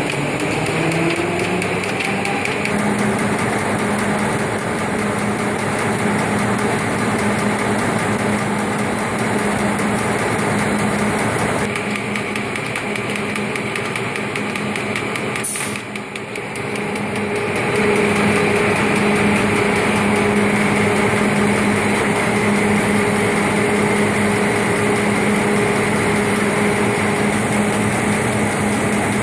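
Super Web Digital WEBjet 200D web press and Smart Stacker running: a steady mechanical whir of rollers, belts and motors over a low hum. A motor tone rises in the first couple of seconds. After a brief break about halfway, a higher steady tone joins.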